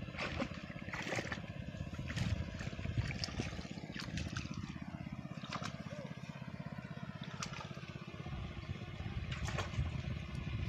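A small engine running steadily, with intermittent splashing and sloshing of feet wading through shallow muddy water.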